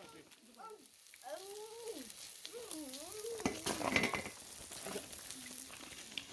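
Food sizzling and crackling as it fries on a fire-pit grill, loudest about halfway through. A few high, sliding voice sounds come over it in the first half.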